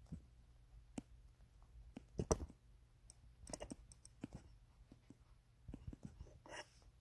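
Faint, scattered clicks and taps of fingers on a handheld smartphone, the loudest about two seconds in and a quick cluster a little past halfway, over a faint low hum.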